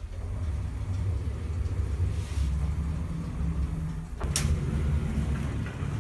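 Passenger elevator running as it rises, a steady low rumble and hum, with one sharp click a little over four seconds in.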